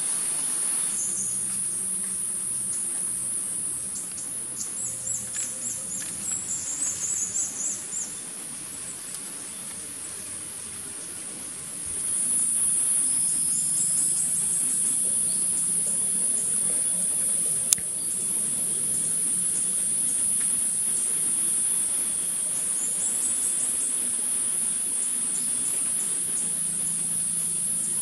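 Insects droning steadily at a high pitch, louder from about twelve seconds in. A run of short, high bird chirps comes between about four and eight seconds in, and there is a single sharp click later on.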